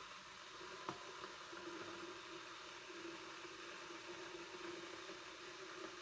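Glass electric kettle heating water with ice floating in it: a steady faint hiss as it heats, not yet at a rolling boil. A single sharp click about a second in.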